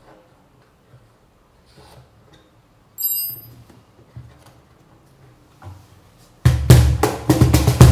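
Small clicks and a brief metallic ring about three seconds in as the cajon's jingle adjuster is worked with a hand tool. About six and a half seconds in, the cajon is played by hand with fast, loud slaps and deep bass strokes.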